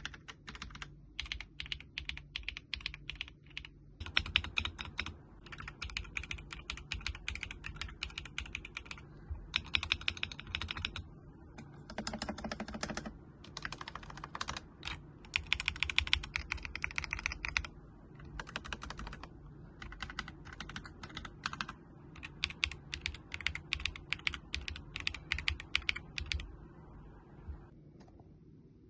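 Fast typing on a mechanical keyboard in a sound test: rapid runs of key clacks lasting a second or two, broken by short pauses, with a longer pause near the end.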